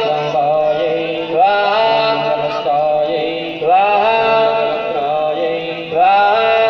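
Hindu mantra chanting: a voice sings the same chanted phrase over and over, each phrase opening with a rise in pitch, three times, over a steady drone.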